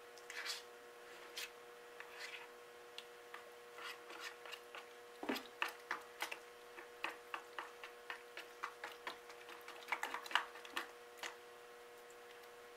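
Plastic spoon stirring glue and borax solution in a plastic bowl as it thickens into slime: soft, irregular clicks throughout, over a faint steady hum.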